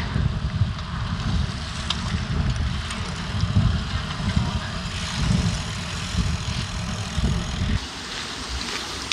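Wind buffeting the microphone of a camera on a moving bicycle: a gusty low rumble over a steady hiss. The rumble drops away suddenly about eight seconds in, leaving a softer hiss.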